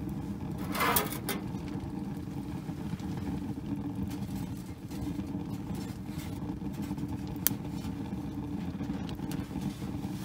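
Wood fire burning in a small homemade tin-can stove, a steady low rumble with a brief rustling burst about a second in. A single sharp metallic click comes near the end as an aluminium pot is set on the stove top.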